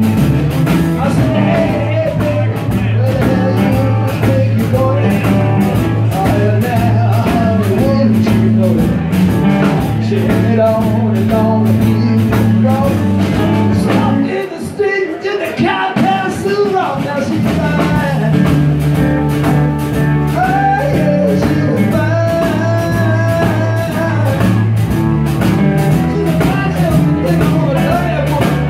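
Live blues-rock band playing: electric guitar, drum kit and a singer over a steady low bass line. About halfway through, the drums and low end drop out for a couple of seconds, then the full band comes back in.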